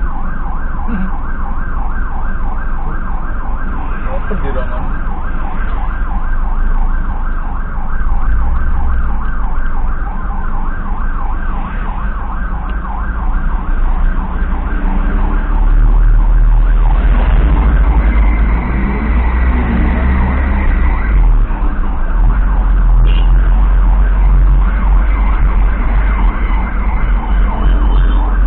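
Ambulance's electronic siren cycling rapidly, heard from inside the cab over a low engine and road rumble. The rumble grows louder about halfway through.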